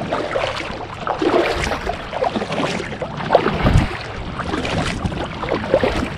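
Kayak paddle strokes in lake water: the blade dipping and pulling, with irregular splashing and dripping off the blade, and one dull thump a little past halfway.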